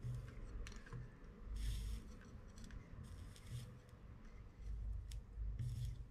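Faint scraping and light ticking as a 60-watt soldering iron tip and solder wire work the pins of an electronic control unit's circuit board, with a couple of brief hissy scrapes, one about one and a half seconds in and one near the end, over a low rumble.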